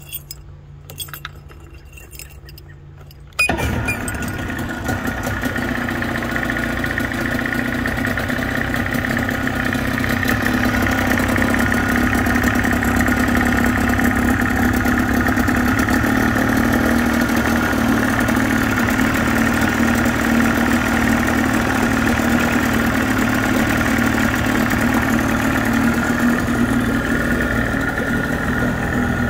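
Keys jingle in the ignition, then about three seconds in a Johnson 28 hp two-stroke outboard motor starts abruptly and runs steadily, its lower unit in a tub of water, with the telltale squirting cooling water.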